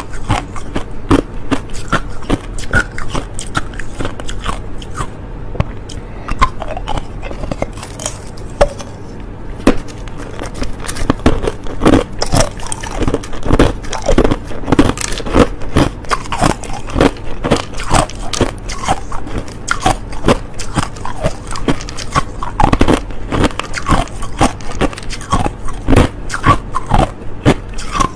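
A person biting and chewing hard crushed ice close to the microphone: dense, irregular crunching and cracking, several bites a second, with no let-up.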